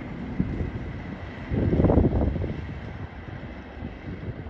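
Class 37 diesel locomotive's English Electric V12 engine running as it draws away light engine, a thin steady whistle over the rumble. A louder rush of wind buffeting the microphone comes about one and a half seconds in.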